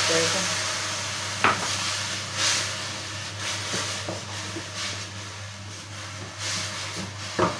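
Milk poured onto coconut and ghee in a hot aluminium kadai sizzles loudly, the sizzle slowly fading, while a wooden spatula stirs and scrapes the pan. The spatula knocks sharply against the pan about a second and a half in and again near the end.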